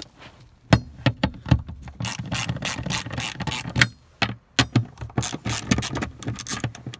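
Ratchet wrench clicking in quick runs, with a short pause partway through, as it loosens the 10 mm nuts on the fuel pressure regulator access cap.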